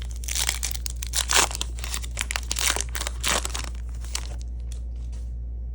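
Plastic wrapper of a Topps basketball card pack being torn open and crinkled, a run of sharp crackling rips over about four seconds that dies away near the end, over a steady low hum.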